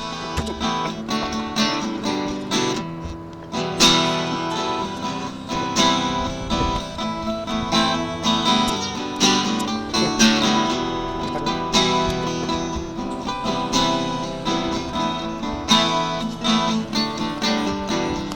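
Background music: acoustic guitar, strummed and picked, with a steady beat.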